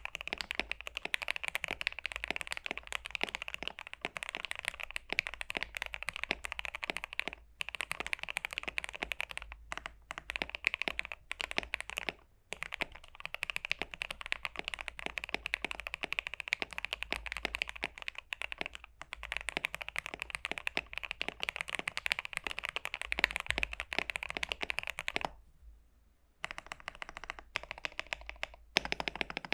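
Fast, continuous typing on a KBD67 Lite R2 mechanical keyboard with lubed and filmed Gateron Cap Yellow v2 linear switches and GeekArk keycaps, giving a dense patter of keystrokes. It breaks off briefly a few times and pauses for about a second near the end.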